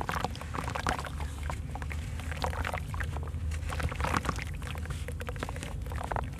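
Hands crumbling soft, water-soaked lumps of sand-cement into a basin of water: a dense run of gritty crunches and crackles, with splashing and pieces dropping into the water.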